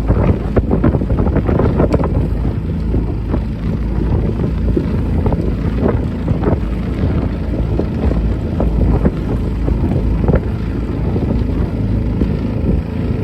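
Wind buffeting the microphone, a loud low rumble with uneven gusty crackles.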